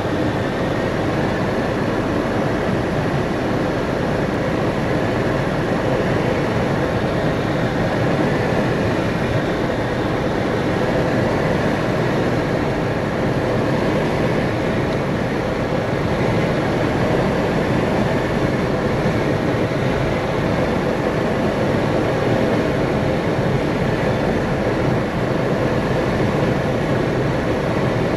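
Steady engine, propeller and airflow noise inside the cockpit of a Sting S4 light-sport airplane on final approach, running at a constant setting with no change in level.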